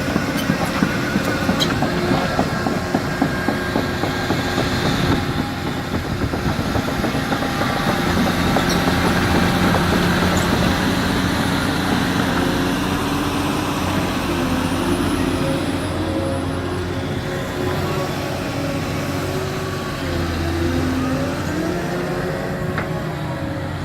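Caterpillar 323D excavator's diesel engine running while the hydraulics work. The engine note rises and falls under load, and a whine bends up and down near the end. A few light knocks come in the first couple of seconds.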